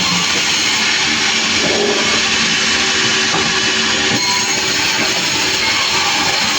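Sawmill machinery running steadily: the saw and its engine, with a dense, even noise and a faint steady hum underneath.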